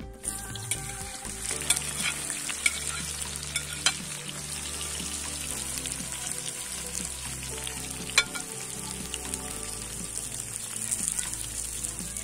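Sliced onions hitting hot oil in a cast-iron wok and sizzling steadily as they fry, the sizzle starting suddenly as they are tipped in. A metal slotted spoon stirring them gives a few sharp knocks and scrapes against the pan, the loudest near the end.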